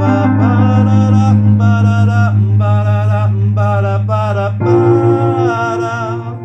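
A man singing over sustained chords played on an electronic keyboard. The chord changes about four and a half seconds in, and the sound begins to die away near the end.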